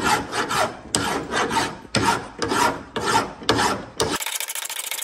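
Flat hand file rasping across the end of a steel steering spindle shaft on a John Deere D120 lawn tractor, about two strokes a second, turning into a steadier, thinner rasp near the end. The shaft is being shortened so an E-clip can fit above a newly added thrust needle bearing.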